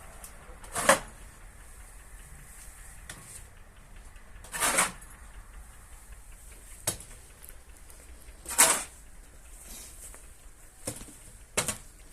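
Six short knocks and scrapes, a couple of seconds apart and unevenly spaced, over a quiet background.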